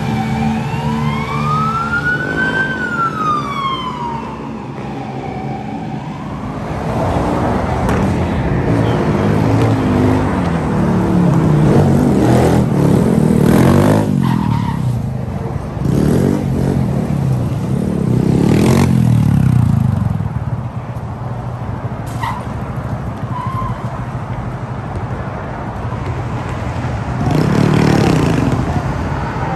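A siren wails slowly up and down over the first few seconds while engines run underneath. After that, small motorcycles rev up and pass close several times; the loudest passes come around the middle and once near the end.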